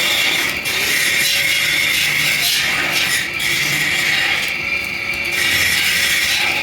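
Steady rasping, scraping noise of metalwork in a truck repair shop, continuous with a few brief dips.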